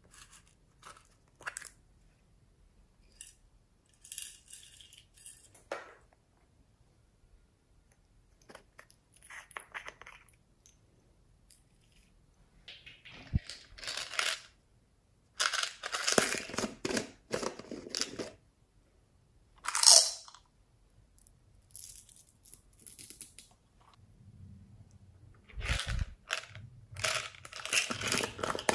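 Plastic slime containers handled and opened by hand: scattered clicks, scrapes and rustles of plastic lids and packaging, coming in short bouts with pauses, busier in the second half, with one sharp louder burst about two-thirds of the way through.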